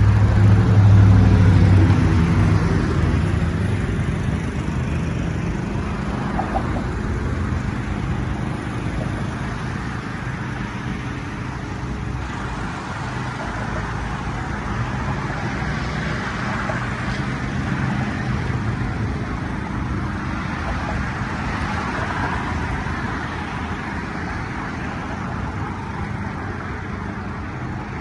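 Road traffic: a vehicle engine close by is loudest in the first couple of seconds and fades away, leaving a steady hum of passing traffic.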